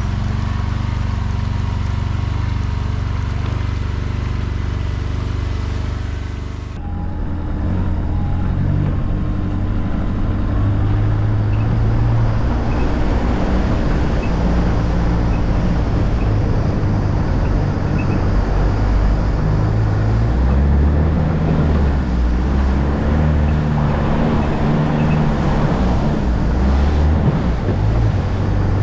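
Off-road buggy engine running as it is driven through a flooded water crossing, its pitch rising and falling with the throttle. The sound changes abruptly about seven seconds in, from a steady drone to a noisier, more uneven run.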